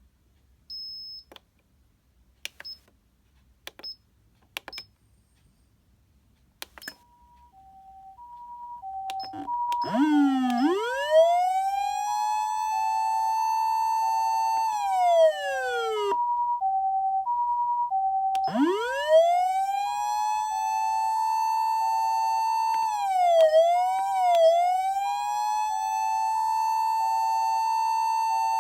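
Osaka Siren OPS-5101V-Q ambulance siren amplifier sounding through its speaker. A few clicks and short high beeps, then about seven seconds in the Japanese ambulance two-tone hi-lo fades in, two notes alternating. About ten seconds in, an electronic wail sweeps up over it and holds, falls away, then rises again, with quick dips near the end.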